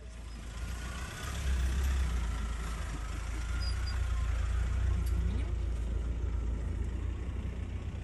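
Vehicle engine idling: a steady low rumble that grows louder about a second in.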